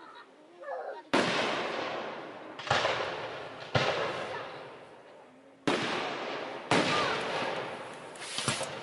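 Aerial firework shells bursting: five sharp bangs one to two seconds apart, each trailing off in a long echo, then a quick run of crackling pops near the end.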